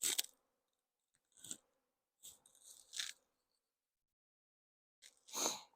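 Four short crunching, scraping sounds of beehive frames and wax being handled, the longest about two seconds in and the loudest near the end.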